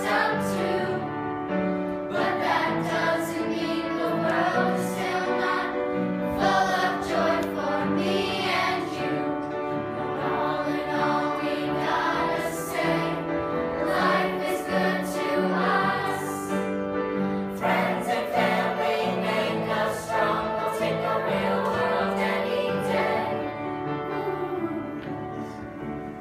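A group of children singing a song together on stage, a sustained choral melody over steady lower notes, getting quieter near the end.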